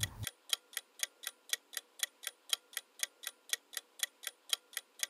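Clock-ticking countdown timer sound effect, even sharp ticks at about four a second, marking the time allowed to answer the riddle.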